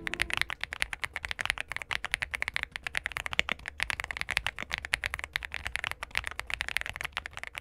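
Typing fast on an Aula F65 mechanical keyboard fitted with its stock Leobog Reaper switches: a dense, steady stream of keystroke clacks.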